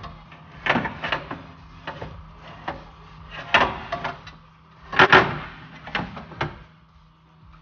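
Honda S2000 door glass being worked out of the bare door shell: irregular knocks, clunks and scrapes of glass and plastic against the door frame, the loudest clunk about five seconds in.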